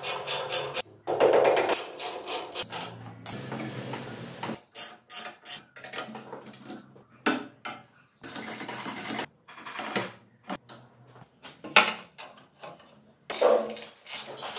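Workshop assembly noises: irregular clinks, clatters and knocks of steel parts, bolts and hand tools being handled. The sounds stop and start abruptly, with a few sharper knocks standing out.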